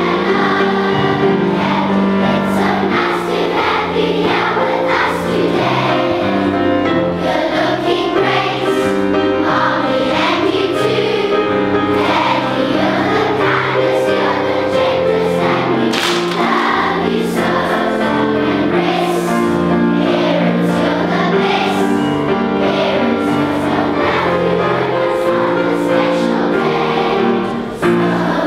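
A large choir of young children singing a welcome song together, over instrumental accompaniment with steady low notes.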